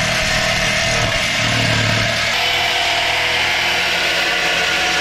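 Corded DeWalt reciprocating saw running and cutting through the metal base of a washing-machine drum, a loud, steady buzz whose low hum drops away about two seconds in.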